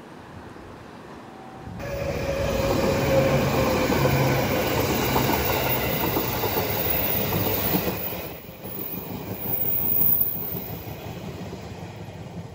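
JR Kyushu 811 series and 813 series electric trains coupled together passing close by: wheels-on-rail and running noise starts abruptly about two seconds in and stays loud for several seconds. It dips about eight seconds in, swells again briefly, then fades as the train moves away.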